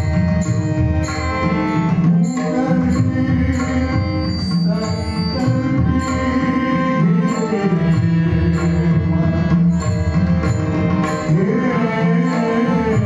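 Devotional music: a mridang drum playing under a sustained melody, with small hand cymbals striking a steady beat about one and a half times a second.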